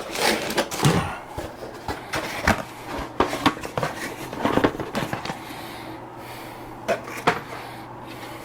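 Hands handling and fitting a new Bambu AMS filament hub: irregular clicks and knocks of small plastic parts, busiest in the first half and with two more knocks near the end, over a steady low hum.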